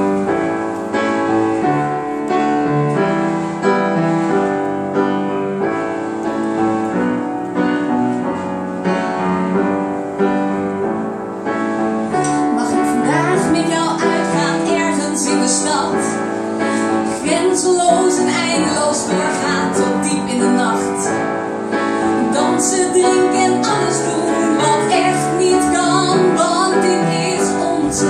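Live solo piano playing a sustained chordal interlude; about twelve seconds in, a woman's singing voice joins over the piano and continues to the end.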